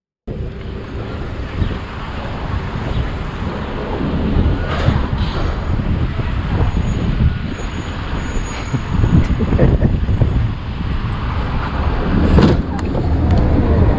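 Road and traffic noise with a low rumble from a motorcycle ride, building louder over several seconds, with one sharp knock about twelve seconds in.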